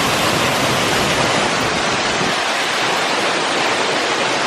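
Waterfall rushing in a steady, loud roar of falling water, running high with storm runoff.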